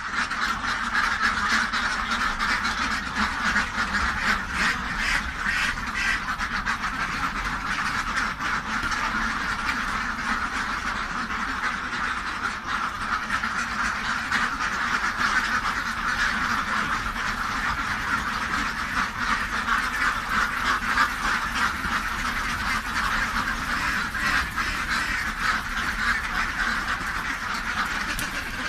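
A large flock of domestic ducks quacking continuously, with many calls overlapping.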